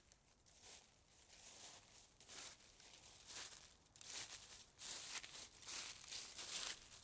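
Faint, irregular scratching and rustling against a plastic bucket holding a trapped mouse, growing louder and busier about halfway through.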